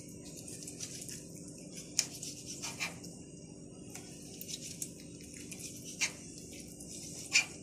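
Knife slicing a fish fillet on a plastic cutting board, the blade tapping the board in a few sharp clicks, the loudest about two seconds in and near the end.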